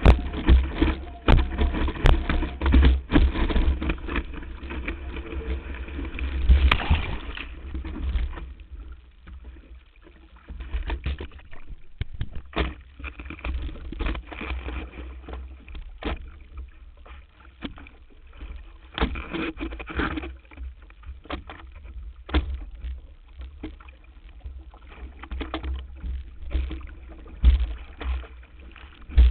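Water rushing and spraying against a windsurf board, with wind buffeting the board-mounted camera, loud for about the first eight seconds while the board sails at speed. After that it is quieter: water slaps and splashes against the hull now and then as the board sits in the water.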